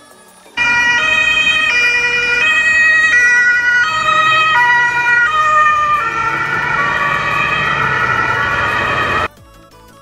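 A German police van's two-tone siren sounds loudly, alternating high and low about every three-quarters of a second. After about six seconds the tones waver and slide lower over road noise, and the siren cuts off abruptly near the end.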